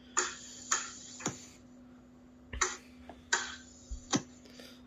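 Several short, irregular breathy bursts of stifled laughter, each with a sharp onset, over a faint steady low hum.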